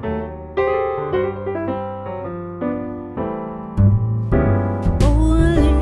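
Background music: piano notes played one after another. Heavier bass comes in about four seconds in, and a singing voice starts just before the end.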